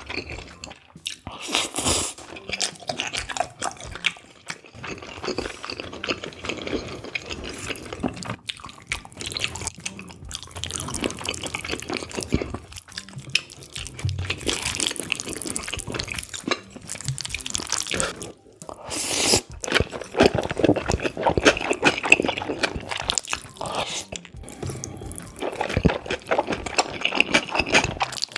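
Close-miked eating sounds: slurping sauce-coated cold spicy noodles with raw beef yukhoe, and wet chewing, in irregular bursts with brief pauses between mouthfuls.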